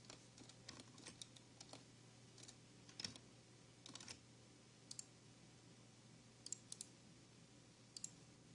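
Faint, scattered clicks of a computer mouse and keyboard, at irregular intervals, over a low steady hum.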